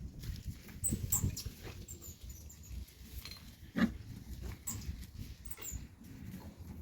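Pigs grunting at irregular intervals, with a louder grunt about four seconds in and a few short high squeaks.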